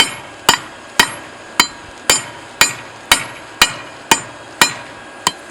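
Hand hammer striking hot railroad-clip steel, about two blows a second with a short metallic ring after each. The blows stop shortly before the end.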